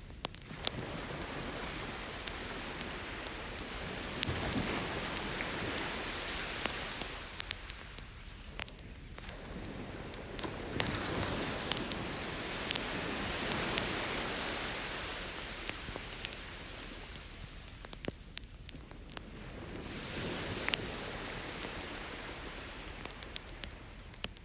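Campfire crackling with sharp pops, over beach surf that swells and fades three times as waves wash in and recede.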